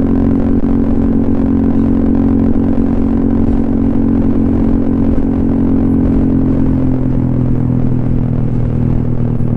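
Honda ADV 150 scooter's single-cylinder engine running through an aftermarket SC Project silencer and Kawahara header while riding at a steady pace. The exhaust note drops slightly in pitch from about two-thirds of the way through as the revs ease off.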